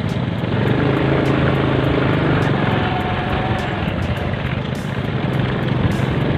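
Motorcycle engine running steadily while riding, a continuous low hum with road and wind noise over it.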